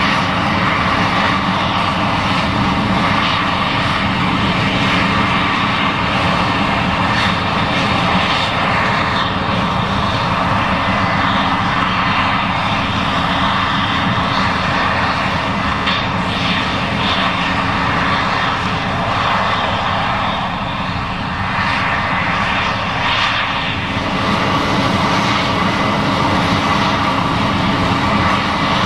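Case IH 7140 Axial-Flow combine running while harvesting corn: a loud, steady drone of engine and threshing machinery, briefly a little quieter about two-thirds of the way through.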